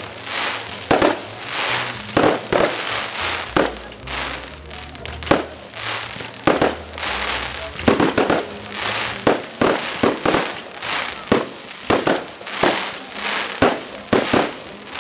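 Fireworks display: aerial shells bursting in quick succession, a sharp bang roughly every half second, some in quick pairs, over a continuous hiss.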